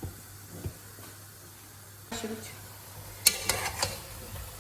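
Food sizzling quietly in a cooking pot, with several sharp clinks and scrapes of a spoon against the pot in the last second and a half.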